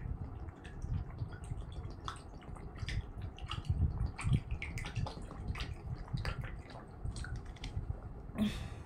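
A woman drinking water straight from a 2-litre bottle in one long go: repeated swallowing gulps and the water moving in the bottle.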